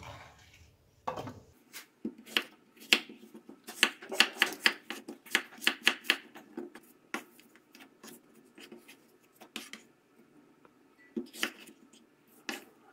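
Kitchen knife chopping apple into small cubes on a wooden cutting board: irregular sharp knocks of the blade meeting the board, thick and quick for the first several seconds, then sparser.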